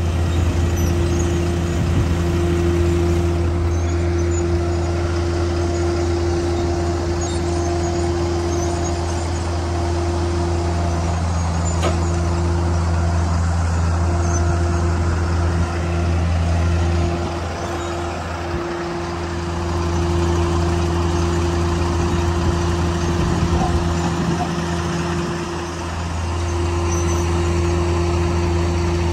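MAN 18-250 truck's diesel engine running steadily while it drives the hydraulic loader crane as the crane is folded to its stowed position. The engine note sags briefly twice in the second half.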